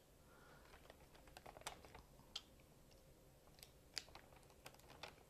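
Near silence with scattered faint small clicks, like small parts being handled.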